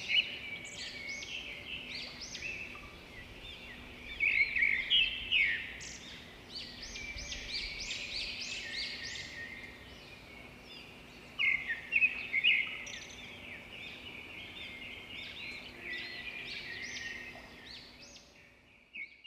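Several songbirds chirping and trilling together in a morning chorus, with bouts of rapid high notes that come and go. The birdsong fades out at the very end.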